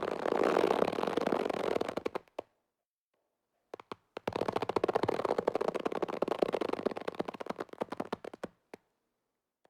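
Rubber band being stretched, creaking with a dense run of rapid crackles. It runs for about two seconds, stops, then after a pause comes a second, longer stretch of about four seconds, followed by a couple of single clicks.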